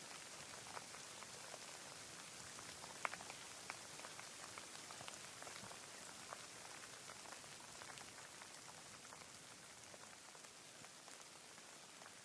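Steady rain: a soft, even hiss with scattered individual drops ticking through it, one a little louder about three seconds in.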